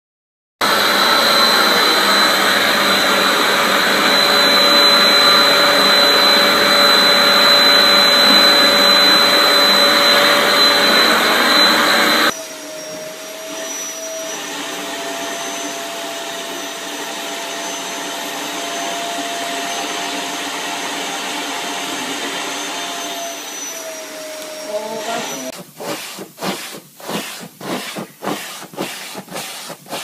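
Vacuum cleaners running. The first is a loud, steady whine with a high tone. After a sudden cut to a second, quieter vacuum about twelve seconds in, a lower hum carries on. In the last few seconds the suction noise pulses about twice a second as the nozzle is worked over a cat's fur.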